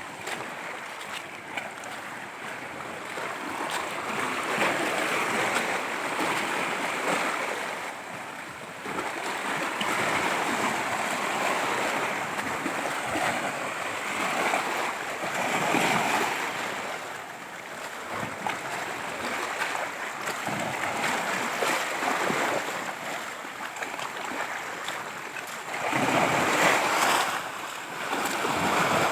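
Ocean waves crashing and washing ashore, the surf swelling and easing every few seconds, with its loudest surge near the end.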